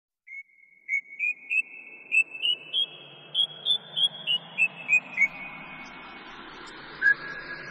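A whistled tune of short, clear notes climbing step by step in pitch and then stepping back down, followed after a pause by one lower note, over a faint hiss.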